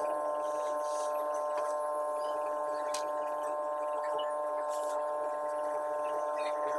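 A steady electrical hum made of several constant tones, unchanging throughout, with a couple of faint clicks.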